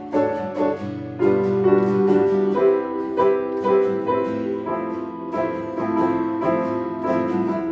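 Grand piano and steel-string acoustic guitar playing an instrumental chord progression together, the chords changing every second or so.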